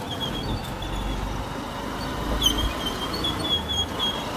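Motorcycle on the move: a steady low engine and road rumble, with a run of short high-pitched chirps over it.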